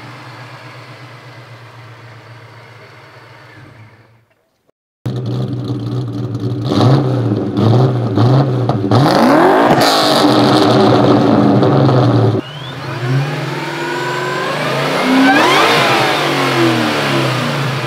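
Whipple-supercharged 2003 Mustang Cobra's 4.6 L V8 idling through Borla Stinger exhaust, fading out. After about a second of silence, a modified Mustang V8 idles and is revved several times, then cuts off abruptly and a second modified Mustang V8 (one of the pair is cammed, the other Whipple-supercharged) is revved in turn.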